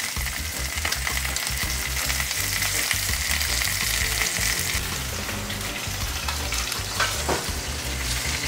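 Chicken breasts sizzling steadily, skin side down, in a hot stainless steel frying pan with butter. A couple of sharp knocks near the end as the pan is set on the oven rack.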